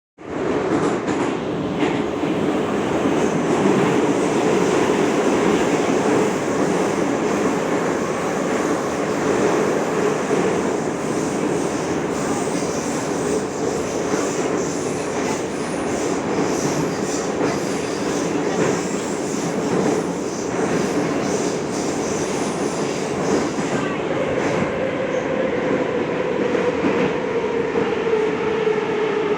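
Moscow metro 81-717/714 'Nomernoy' train running on the rails with wheel clatter and some wheel squeal. Near the end a humming tone comes in and slides slowly down in pitch as the train comes into the station.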